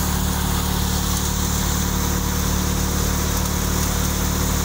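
Threshing machine running steadily under load as dry chickpea plants are fed into it: a constant mechanical drone with a low hum.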